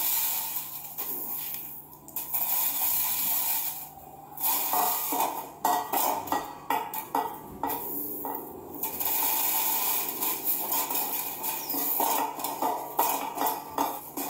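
Loose grain poured into a clear plastic box, a hissing patter, followed by irregular clicks and clatter of hard items.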